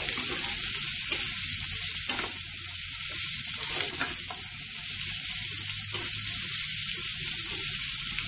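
Shredded cabbage, carrot and capsicum stir-frying in hot oil in a frying pan: a steady sizzling hiss as they are stirred and turned with a spatula, with a couple of faint spatula scrapes about two and four seconds in.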